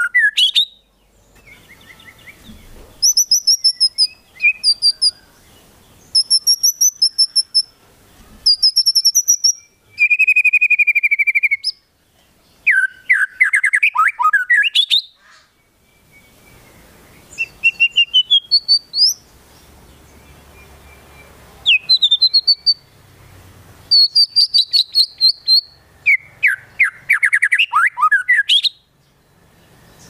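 White-rumped shama singing in repeated bursts of rapid high chirps, trills and rising whistled sweeps, with short pauses between phrases. The song is packed with imitated konin and kinoi calls.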